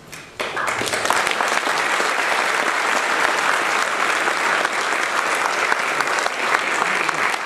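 Audience applauding, breaking out suddenly about half a second in and carrying on loud and steady.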